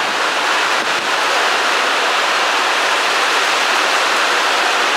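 Heavy rain pouring down, a steady loud hiss.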